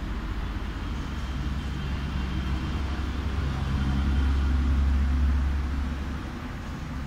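Low, steady rumble of a motor vehicle engine running, swelling about four seconds in and easing off about a second later.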